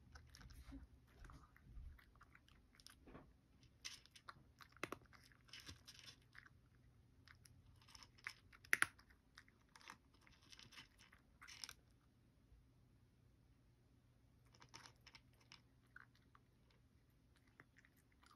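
A cat chewing dry kibble: faint bursts of crunching with short pauses between them, and one sharper crack about nine seconds in. The crunching thins out over the last few seconds.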